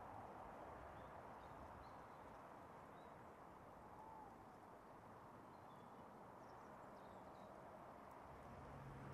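Near silence: a faint, steady open-air hush with a few faint, short bird chirps scattered through it.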